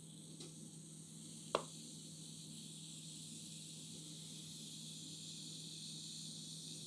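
Baking soda and vinegar fizzing as they react, a faint steady hiss that grows slightly louder. A single sharp click about a second and a half in.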